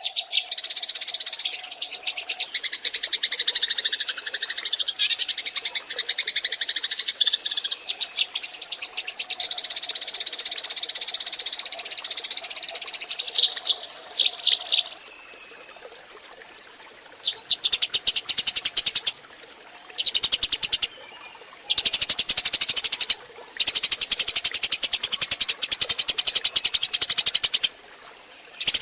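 Eurasian tree sparrows chirping in a dense, rapid chatter, with a steady low tone underneath at times. The chatter runs without a break for about the first half, drops away briefly, then comes back in bursts of one to four seconds.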